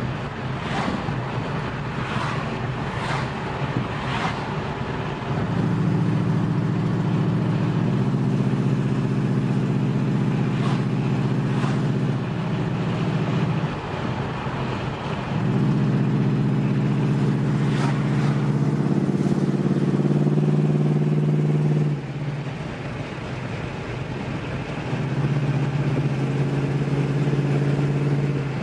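1979 Pontiac Trans Am's 403 V8 with Flowtech and Magnaflow exhaust, heard from inside the cabin on the move. The engine note swells three times under throttle, each time holding a steady pitch for several seconds, and in between there is road and wind noise.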